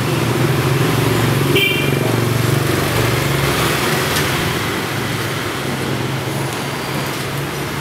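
Street traffic of motorbikes and cars passing, a steady engine hum with road noise that is loudest in the first few seconds and then eases. A brief high beep sounds about a second and a half in.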